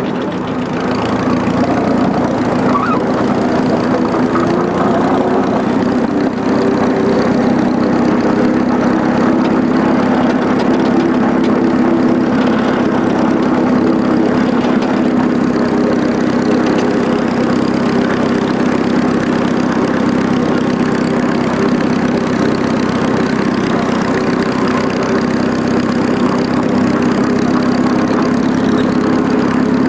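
The engine of the miniature railway locomotive 'Western Comet' running steadily as it hauls the train round the circuit, getting a little louder near the start as the train gets under way.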